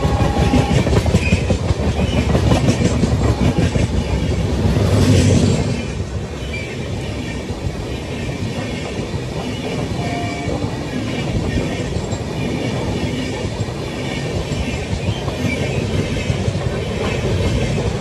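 Express train's passenger coaches running past close by at speed, wheels clattering rhythmically over the rail joints, loudest about five seconds in, then a steadier rumble. The clatter picks up again near the end as the last car passes.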